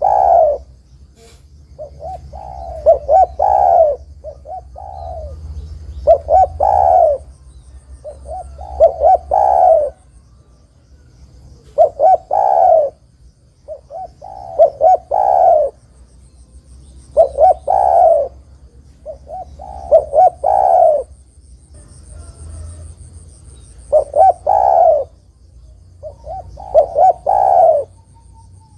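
Spotted dove (derkuku) cooing: about ten loud phrases, one every two to three seconds. Each phrase is a few short notes ending in a longer coo.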